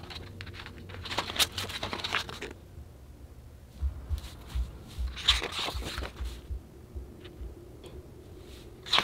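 Large pages of a hardcover photobook being turned by hand: two rustling page turns, about a second in and again around four to six seconds in, the second with low bumps of the book being handled.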